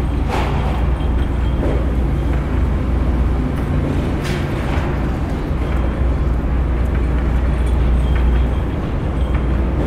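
Heavy construction machinery at a pile-driving site, its engine running steadily with a low drone. Two short sharp knocks stand out, about a quarter second in and about four seconds in.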